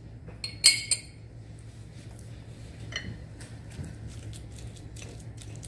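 A metal spoon clinks sharply against glass twice, about half a second in, while relish is spooned from its jar. Then faint scattered taps and scraping follow as mashed egg yolks are mixed in a glass pie plate.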